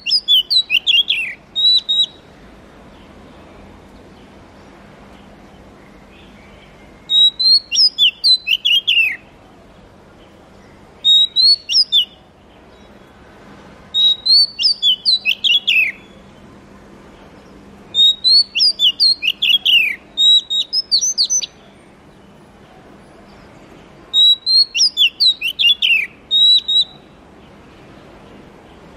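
Oriental magpie-robin singing: about six short phrases of quick, high whistled notes, many sweeping downward, with pauses of a few seconds between phrases.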